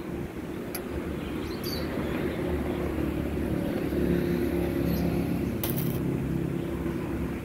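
Electric arc welding on a motorcycle's cracked steel frame tube: the welding machine hums steadily under load, growing louder after a couple of seconds, with a few sharp crackles from the arc.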